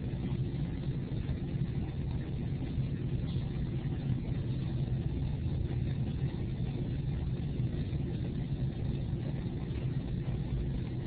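A steady low hum and rumble of background noise, unchanging throughout.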